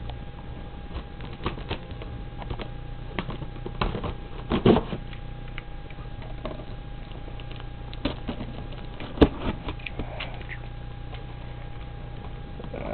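Cardboard shipping box and packaging being handled: scattered taps, knocks and rustles, with one sharp click about nine seconds in, over a steady faint hum.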